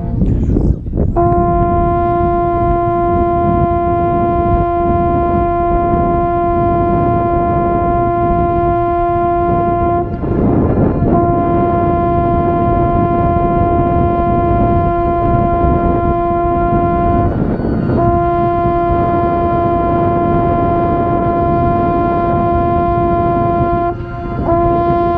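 Mellophone playing long held notes on one steady pitch, breaking off briefly three times for breath, with a steady low rumble underneath.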